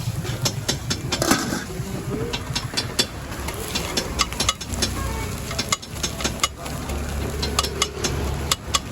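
Metal spatulas chopping and clanging on a flat iron griddle, a quick run of sharp strikes, as parotta is chopped for kothu parotta. A steady low engine-like hum runs underneath.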